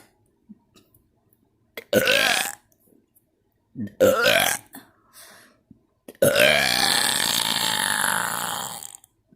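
A person burping on purpose: two short burps about two and four seconds in, then one long burp of nearly three seconds starting about six seconds in.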